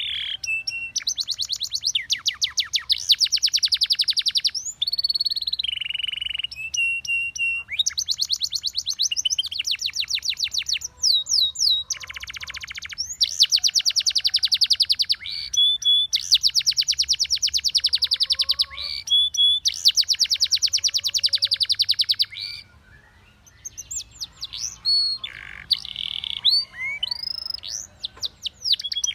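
Spanish Timbrado canary singing: long trilled phrases of rapid repeated notes, broken by a few held, even whistles, with a short pause about three-quarters of the way through.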